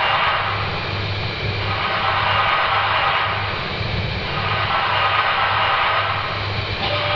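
Dark ambient drone: a dense wall of hissing, rumbling noise that rises and falls in waves every few seconds, over a low hum that pulses about twice a second.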